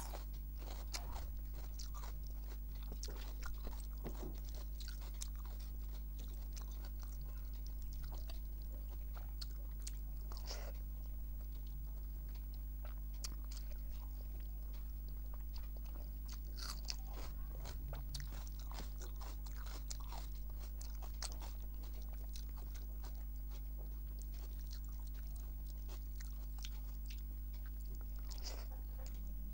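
Close-up chewing of hand-fed mouthfuls of rice with fried cabbage and brinjal, with many small crunches and wet mouth clicks scattered throughout. A steady low electrical hum runs underneath.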